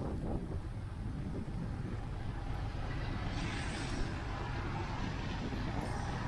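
City street traffic: a steady low rumble of passing vehicles, with a brief rise of hiss from a passing vehicle a little past three seconds in.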